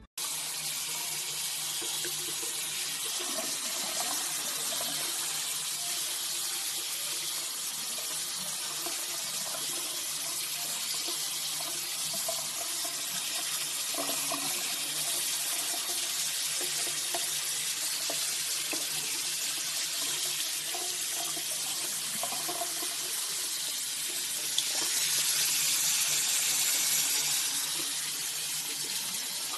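Tap water running steadily from a faucet into a sink and over a puppy being washed under it. The flow gets louder and hissier for a couple of seconds near the end.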